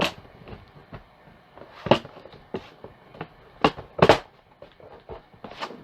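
Plastic bay cover of a notebook PC being handled and fitted back onto the laptop's underside: about five sharp clicks and knocks, a second or two apart.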